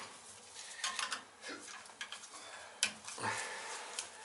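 Scattered light clicks and small handling noises, with one sharper click about three seconds in.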